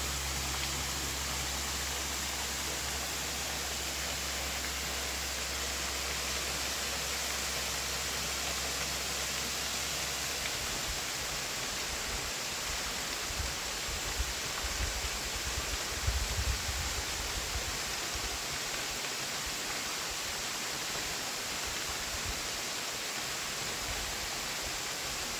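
Rushing water of a rainforest waterfall cascade, a steady hiss of falling water, with a few low bumps about halfway through.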